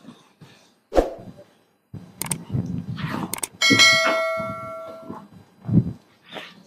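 Notification-bell ding from a subscribe-button sound effect, ringing out about three and a half seconds in and fading over about a second and a half. Around it, cotton cloth rustles and thumps as it is shaken out and smoothed on a cutting table.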